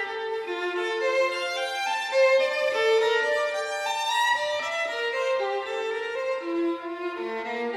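Instrumental background music: a melody of held notes, changing about twice a second, with no bass underneath.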